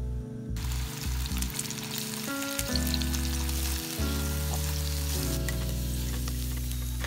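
Sliced potatoes sizzling as they fry in hot olive oil in a pan, stirred with a wooden spatula; the sizzle starts about half a second in. Background music with sustained low notes plays underneath.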